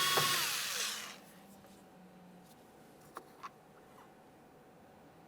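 Cordless power tool spinning out a 7mm door-panel mounting bolt: its motor whine falls in pitch and stops about a second in. Two light clicks follow a little after three seconds in.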